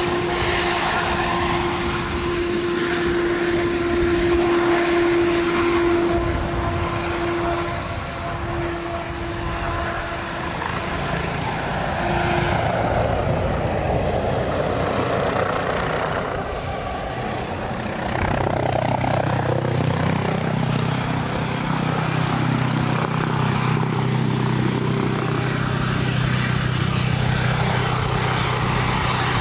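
Aircraft engine noise: a steady whine that fades out about ten seconds in, a broad sweep of noise that rises and falls in the middle as the aircraft passes, and a lower steady hum coming in about eighteen seconds in.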